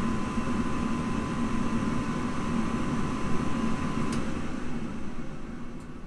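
Armstrong Ultra V gas furnace on a start attempt: a motor hums with a steady high whine. About four seconds in there is a click, the whine cuts off and the hum fades; the furnace fails to light.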